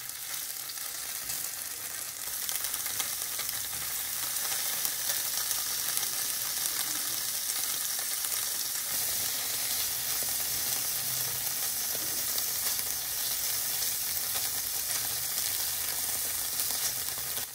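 Strips of tofu frying in a little oil in a nonstick pan over medium heat: a steady sizzle that grows a little louder about two seconds in.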